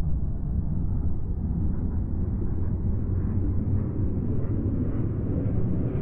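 Sound-design rumble under an animated logo sting: a deep, steady rumble that grows gradually brighter, like a slow rising filter sweep.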